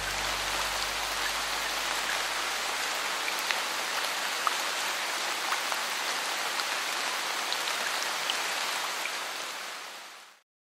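Steady rain falling on a pool and its deck, with scattered sharp ticks of single drops. It fades out near the end.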